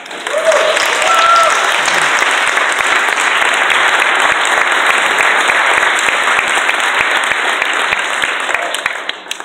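A church congregation applauding. The clapping swells up just after it begins, holds steady, and fades out near the end, with a voice briefly calling out about a second in.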